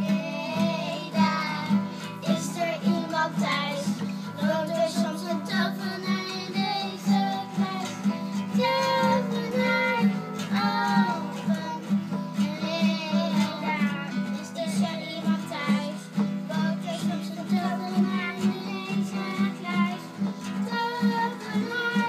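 Young girls singing a song while strumming small nylon-string classical guitars, the voices riding over a steady strummed rhythm.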